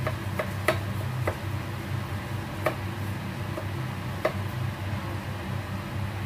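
Chef's knife knocking against a plastic cutting board a few times at uneven intervals while garlic is chopped, over a steady low hum.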